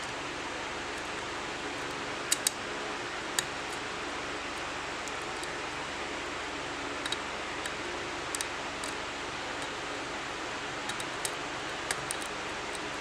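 Small, sharp clicks and ticks from a lock pick and tension wrench working the pin tumblers of a padlock. They come scattered, a few louder ones a couple of seconds in, over a steady hiss.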